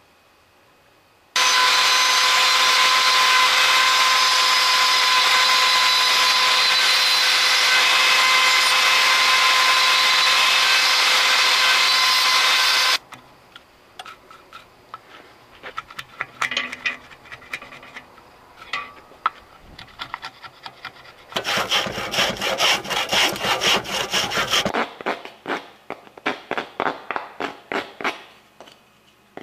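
A power tool runs steadily on a wooden block for about eleven seconds, starting and stopping abruptly. Then comes hand filing of the wood: scattered scraping strokes, a fast run of rapid strokes, then slower separate strokes.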